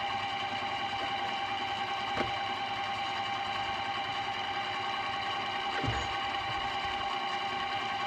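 Computer speakers putting out a steady mechanical-sounding drone with several fixed high tones, like a car engine trying to turn over, though no audio is playing: a fault the owner traces to the computer. Two knocks sound over it, about two and six seconds in.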